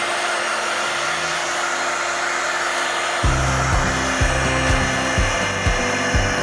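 Hair dryer blowing steadily, drying wet watercolor paint. It was switched on with a click just before and spins up to a steady whirring hiss. About three seconds in, an irregular low rumble joins it.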